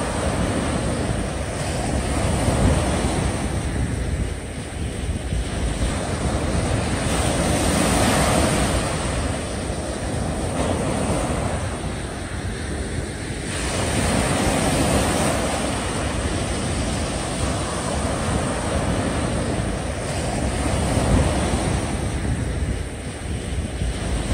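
Small waves breaking and washing up a sandy beach. The surf swells and draws back about every six seconds, with wind on the microphone.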